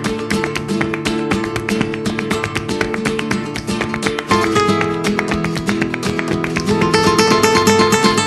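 Flamenco-style acoustic guitar music with rapid plucked notes and strums.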